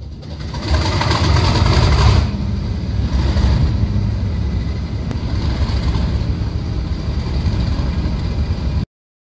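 Diesel locomotive engine running, louder for the first couple of seconds and then steady, with a constant high whine over a heavy low rumble; it cuts off suddenly near the end.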